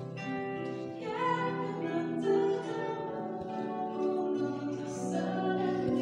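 Two harps playing, with a voice singing long held notes over them.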